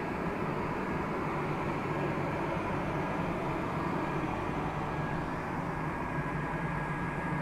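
Electric air blower running steadily, inflating the PVC inflatable water slide: a constant rushing drone with a low hum.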